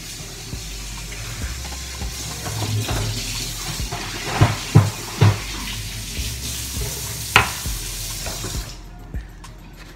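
Water poured from a glass measuring cup into flour in a plastic mixing bowl, with three sharp knocks about midway and another a couple of seconds later.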